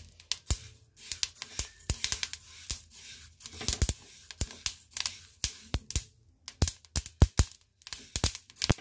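Flaxseeds crackling and popping in a hot, dry steel kadhai: irregular sharp clicks, the sign that the pan is hot enough and the seeds have begun to roast and jump. A spatula stirs the seeds, scraping them around the pan.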